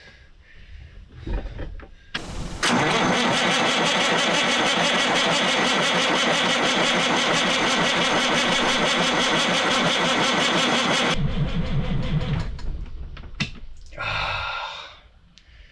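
Caterpillar 3406B diesel, dormant for about 25 years, cranked over by its starter. It turns over steadily for about eight seconds without catching, then winds down to a stop. The cranking is building oil pressure, up to about 30 PSI.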